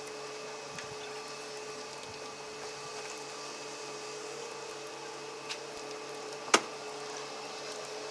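A small motor humming steadily at one pitch, with a single sharp click about six and a half seconds in.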